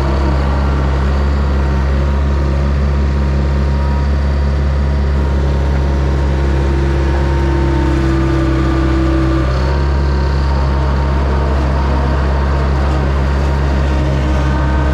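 An engine running steadily at a constant speed, starting suddenly.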